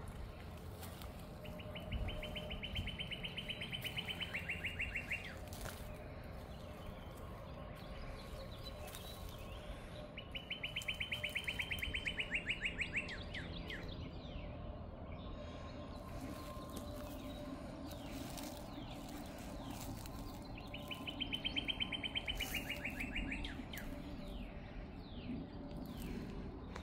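A small songbird singing a fast, even trill three times, each trill lasting two to three seconds and ending in a few slower notes, with long pauses between. Fainter single bird chirps come in between the trills.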